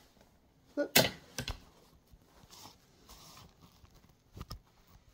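A few sharp knocks and clatters of things being handled at close range, the loudest about a second in, another shortly after, and a quick pair near the end, with a soft rustle between them.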